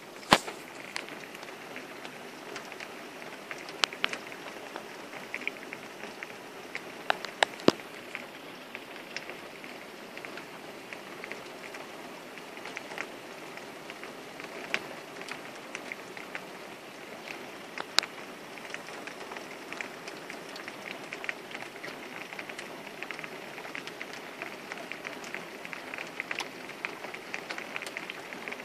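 Steady rain falling, with frequent sharp ticks of drops hitting a hard surface. A few of the ticks are louder than the rest.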